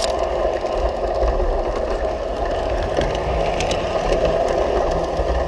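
G scale model train running steadily on outdoor track, its small electric motor and gears running with the wheels rolling on the rails, heard close up from a camera riding on the train. A few light clicks come through, about three seconds in and again near four and a half.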